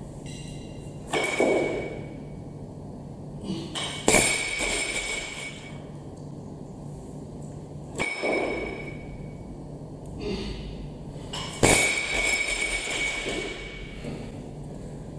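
Loaded Olympic barbell with bumper plates clanking during lifts: four loud clanks a few seconds apart, each followed by a short metallic ring from the bar and plates.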